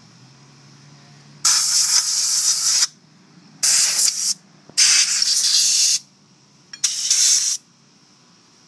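Compressed-air blow gun fed from a coiled air-compressor hose, triggered in four bursts of hiss lasting under a second to about a second and a half each, blowing black belt dust out of a scooter's CVT driven pulley and clutch assembly.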